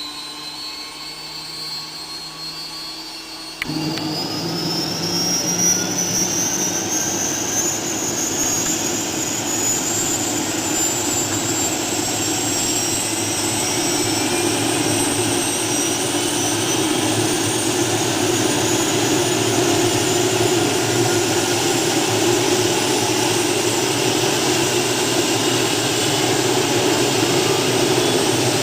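Robinson helicopter's engine and rotors spooling up for takeoff: a steady running sound with a whine that rises in pitch throughout, getting louder suddenly about four seconds in and then climbing slowly.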